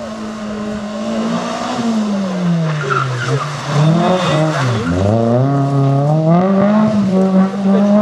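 Hatchback rally car's engine, loud and at speed. The engine note holds, then falls for about three seconds as the car slows into a tight bend. About five seconds in it climbs sharply as the car accelerates out, levels off and dips briefly for gear changes near the end.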